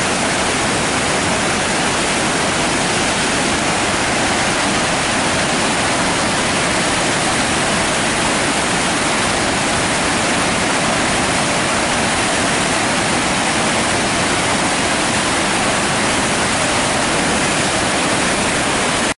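Kettle River in high flood pouring as white water through the rocky Cascades canyon: a loud, steady, even rush of water.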